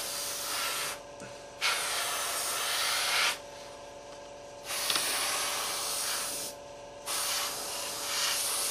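Airbrush spraying paint in four bursts of hiss, each one to two seconds long, with short pauses between passes.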